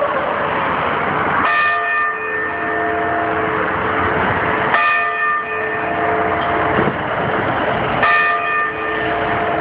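The Sapporo Clock Tower's bell striking the hour: three slow strokes a little over three seconds apart, each ringing on with several clear tones as it fades, over a steady background noise.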